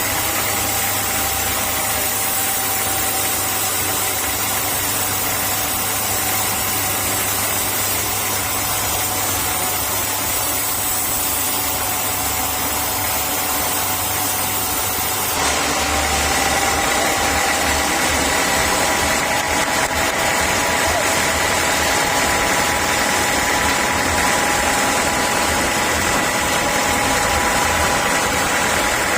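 Sawmill saw machinery running steadily with a constant whine. About halfway through the sound shifts and gets slightly louder.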